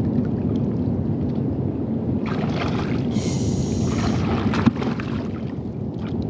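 Steady low wind rumble on the microphone over shallow seawater, with splashing and sloshing for a couple of seconds near the middle as a large coral rock is tipped over in ankle-deep water, and a single sharp knock a little later.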